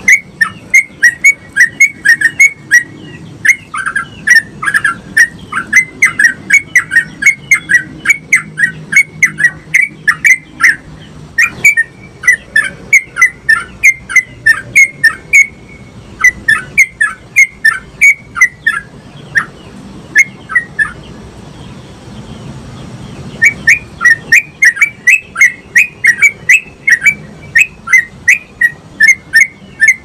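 Yellow-vented bulbul (trucukan) singing energetically in a long run of loud, short chirping notes, about two to three a second, with a pause of about two seconds about two-thirds of the way through.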